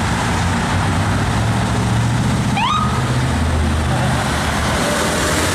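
Dense highway traffic passing steadily, with the low drone of heavy truck engines running through it. A brief rising squeal comes about two and a half seconds in.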